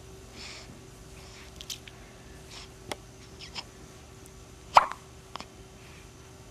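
Hiccups: a few faint clicking hiccups, then one louder hiccup about five seconds in with a short sound that drops in pitch.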